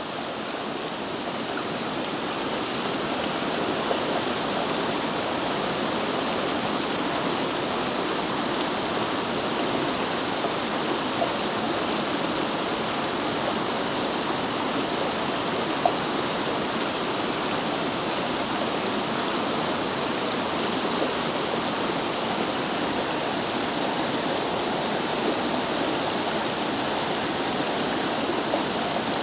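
Rushing stream water flowing steadily over and between boulders, an even, unbroken rush with one brief tick partway through.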